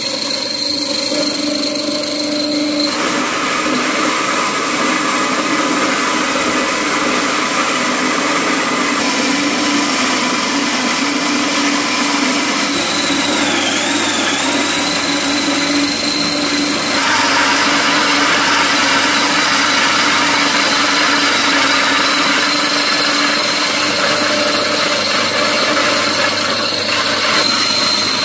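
Small electric grain mill running steadily, grinding grain into meal. Its sound shifts in texture a few times.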